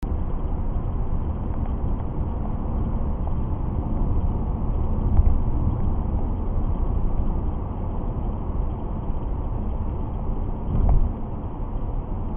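Car driving along, heard from inside the cabin: steady low engine and tyre noise on the road, with a brief louder rumble about eleven seconds in.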